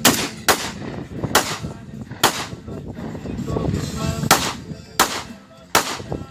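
Seven handgun shots fired one at a time at an uneven pace, most about a second apart, with a longer pause of about two seconds midway.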